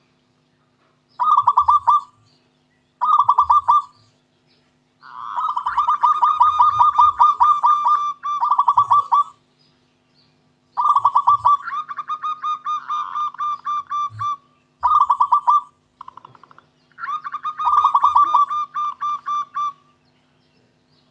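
Zebra dove cooing in a series of phrases of rapid, staccato coos, some under a second and some running several seconds, with short pauses between them.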